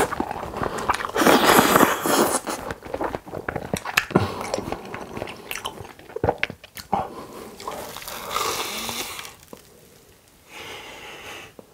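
Close-miked eating: a long wet slurp of carbonara fire noodles about a second in, then chewing with many small wet mouth clicks, and a bite into a cheese-filled fried pork cutlet near the end.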